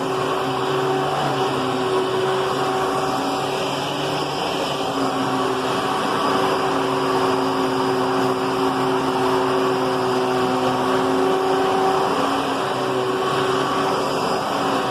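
Hoover Twin Chamber bagless upright vacuum cleaner running steadily under its motor hum, the pitch shifting slightly now and then.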